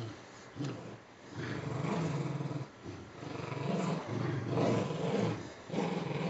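Dogs play-growling during a tug-of-war over a stuffed toy, in long low growls of a second or more with short breaks between them.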